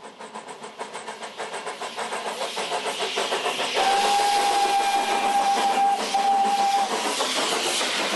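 Narrow gauge steam locomotive approaching, its fast regular beat growing louder, then sounding its whistle: one long blast and a short one.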